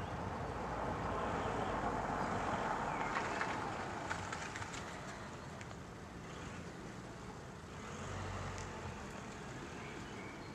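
Outdoor background noise with a road vehicle passing, swelling over the first few seconds and fading away, then a second, weaker swell near the end.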